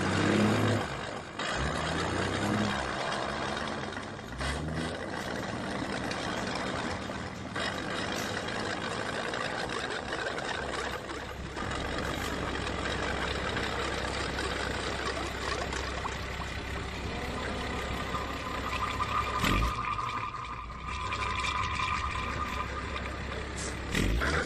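Diesel engine of a Volkswagen Worker 15-180 truck running, its pitch shifting over the first couple of seconds before settling into a steady rumble. A few sharp knocks break in, the loudest near the end.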